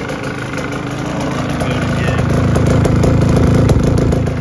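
2021 KTM 125 two-stroke single-cylinder dirt bike engine idling steadily, running on its freshly rebuilt top end just after its first start. It swells louder over a few seconds, then drops back near the end.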